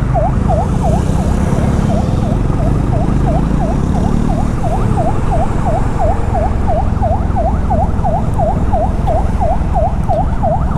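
Ambulance siren in its fast yelp, sweeping down and up in pitch about three times a second without a break, over a steady low rumble of engine and road noise.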